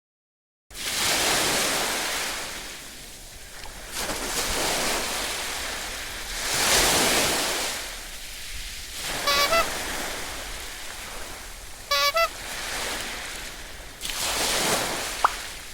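Surf washing in, swelling and ebbing every few seconds, with two short pitched calls about halfway through.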